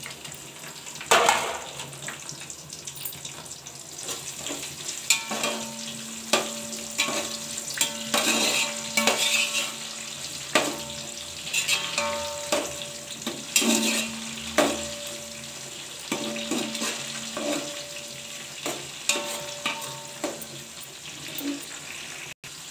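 Sliced onions and green chillies sizzling in hot oil in a large metal pot, freshly added to the tempered spices, with a slotted metal spatula stirring and scraping against the pot in repeated sharp knocks. A faint steady tone runs underneath through the middle stretch.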